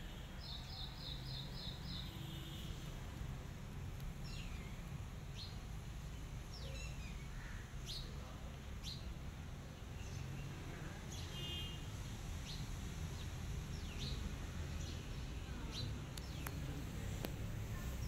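Birds chirping: short, high, sharply falling chirps every second or so, with a quick run of six chirps near the start. A steady low rumble sits underneath.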